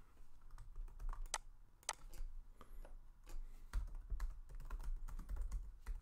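Typing on a computer keyboard: scattered, irregular key clicks.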